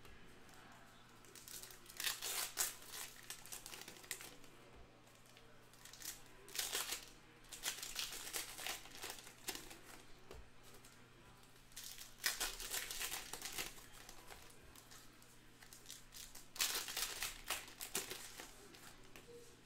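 Foil trading-card pack wrappers crinkling and tearing as packs are ripped open by hand, in bursts every few seconds.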